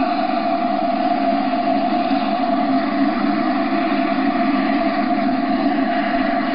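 Radio-controlled scale model helicopter in flight, heard through a TV's speaker: a steady engine-and-rotor whine with one held tone that does not change in pitch.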